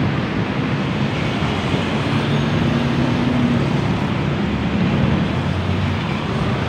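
Steady road traffic noise with a low engine hum running underneath.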